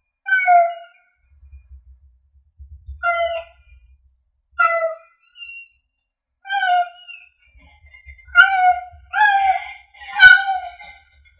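A kitten mewing repeatedly: about eight short, high mews, spaced out at first and coming faster near the end.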